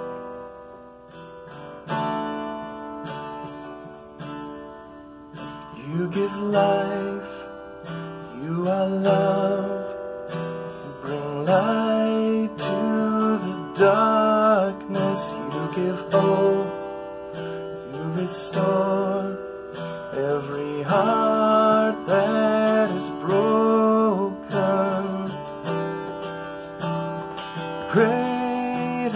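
Worship song played on strummed acoustic guitar, with a singing voice coming in about six seconds in.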